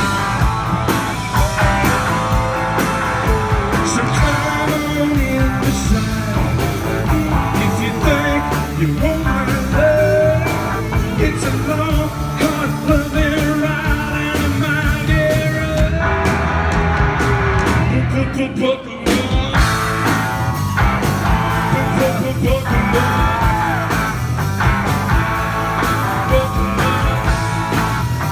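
Live rock band playing loudly through a stretch without clear lyrics: a pounding beat under a lead line that slides and bends in pitch, with a brief drop in the sound about two-thirds of the way through.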